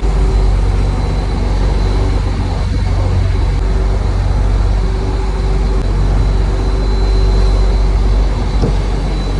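Boat engine running steadily with a loud, low drone.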